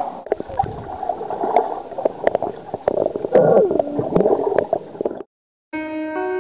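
Water gurgling and sloshing at a camera's microphone as it is dipped at and under the surface, with scattered clicks and knocks. It cuts off about five seconds in, and a music track with held notes starts shortly after.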